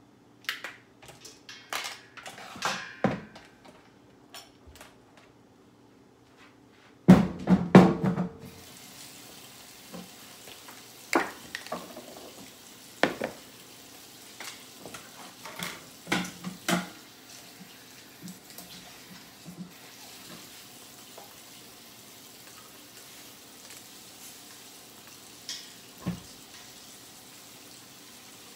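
Knocks and clatter of dishes and a bowl at a kitchen sink, loudest in a cluster about seven seconds in. A tap then starts running with a steady hiss, with more scattered knocks over it.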